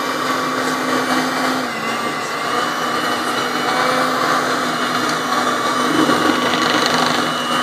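Electric mixer running steadily with a constant whir, mixing flour into cupcake batter.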